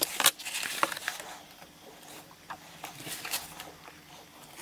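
A craft knife cutting leather along a steel ruler, with the ruler being lifted and set down: a cluster of sharp clicks and scratchy cuts in the first second, then fainter short scrapes.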